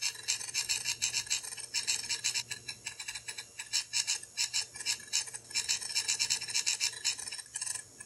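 Recorded seek noise of a Miniscribe 8425S hard disk, played back through a small Adafruit 3885 stemma speaker. The drive heads make rapid, irregular clicking and chattering, bunched into clusters, over a low steady hum.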